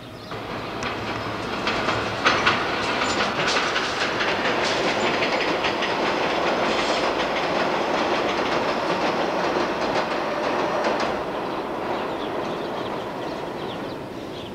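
New York subway train passing on an elevated steel structure: a rumble and clatter of wheels over rail joints. It builds over the first two seconds, holds, and fades away from about eleven seconds in.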